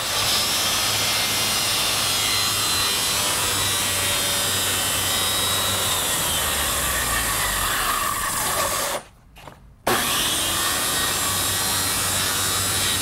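Portable circular saw running and cutting through quarter-inch luan plywood, trimming the base of a homemade straightedge guide. The sound drops away about nine seconds in and comes back abruptly under a second later.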